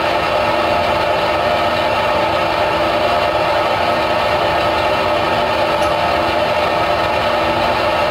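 Steady machine noise: an even rushing sound with a faint hum under it, unchanging throughout.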